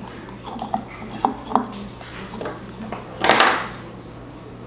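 Small clicks and taps of hands handling wires and heat-shrink tubing on a metal light base, with a louder scraping rustle about three seconds in.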